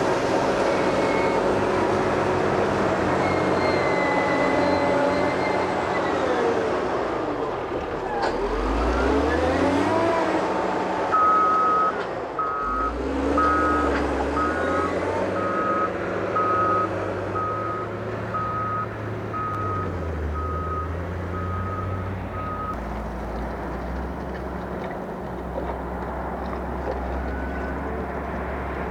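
Heavy earthmoving machine's diesel engine working, its pitch rising and falling as it revs. A reversing alarm beeps repeatedly for about twelve seconds in the middle.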